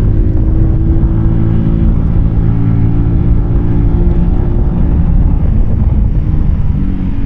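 Keeway K-Light 125's small air-cooled V-twin engine running steadily under way, heard from the rider's position, its pitch shifting briefly near the end.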